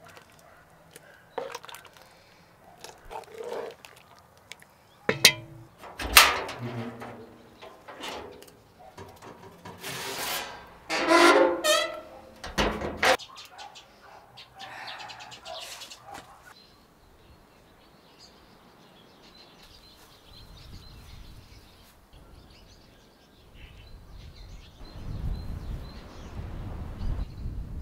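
Clinks and clatters of metal cookware, a cast-iron pot and a metal pan, with a brief ringing metallic scrape about eleven seconds in. After that, birds chirp and, near the end, cloth rustles as gauze is spread over a tray.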